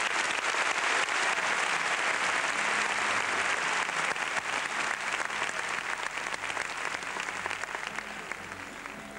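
Audience applauding, a dense steady clapping that slowly fades away.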